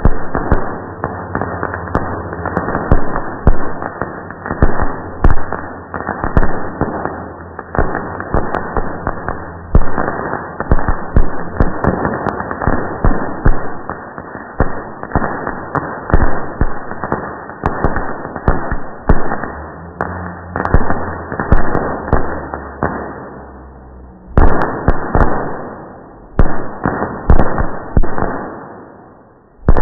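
Fireworks bursting and crackling, played back slowed down several times over: a dense, continuous run of drawn-out bangs. Near the end the bangs thin to a short lull, then a few loud single bangs.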